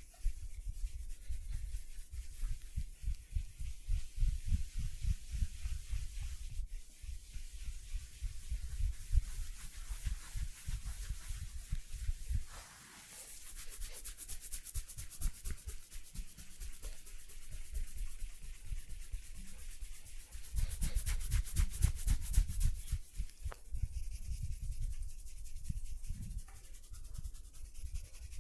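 Hands rubbing and kneading skin during a massage, a close, irregular rasping and thudding friction that pauses briefly partway through.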